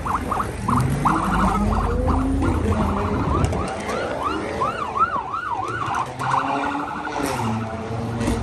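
Police car siren warbling rapidly, then slowing to a yelp about halfway through, over car engines revving and accelerating.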